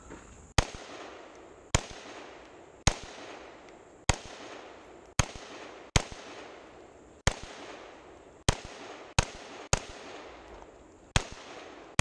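AR-15-style carbine fired semi-automatically: about eleven single shots, mostly spaced roughly a second apart with a quicker pair near the end, each a sharp crack with a short tail of echo.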